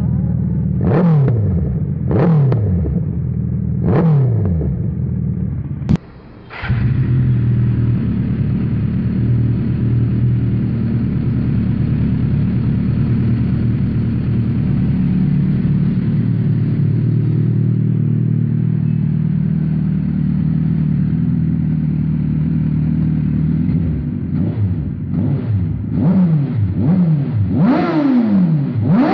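Suzuki Hayabusa inline-four with an aftermarket slip-on exhaust blipped three times, each rev falling quickly back to idle. After a cut, a Suzuki GSX-R sportbike's inline-four idles steadily, then is revved in a series of quick throttle blips that grow bigger near the end.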